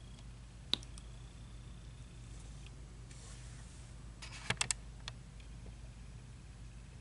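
A few small, sharp clicks and taps of painting supplies being handled on a hard work surface: a single click about a second in, then a quick run of three clicks a little past halfway and one more just after, over a low steady hum.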